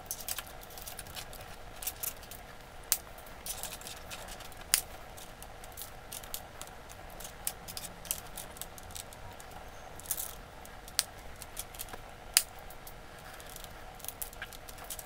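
Electrical wires being handled and joined in a plastic junction box, with a screwdriver: faint rustling with scattered sharp clicks and taps.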